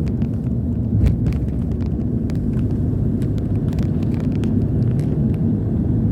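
Steady low rumble of a vehicle on the move, its engine and road noise running evenly, with scattered light clicks over it.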